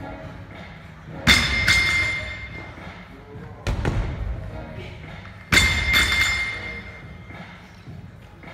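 Heavy thuds from workout equipment, three of them about two seconds apart. The first and last are each followed quickly by a second knock and a short metallic ring.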